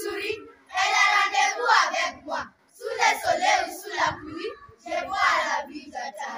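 A group of schoolchildren reciting a French poem in unison as choral verse. They speak line by line in short phrases, with brief pauses between the lines.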